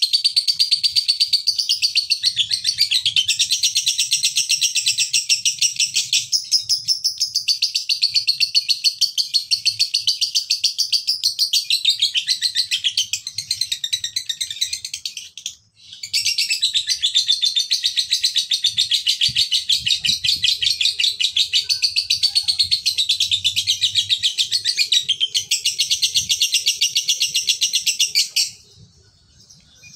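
Male lovebird's ngekek: a long, very rapid, high-pitched chattering trill, broken by a short pause about halfway through and stopping a little before the end.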